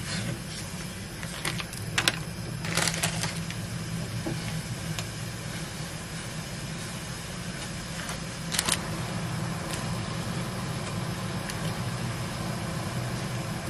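A pot of noodle broth boiling on a gas stove over a steady low hum, with a few sharp clicks and knocks of cookware about two and three seconds in and again near nine seconds, as dried ramen noodles go in and a mesh strainer is brought over the pot.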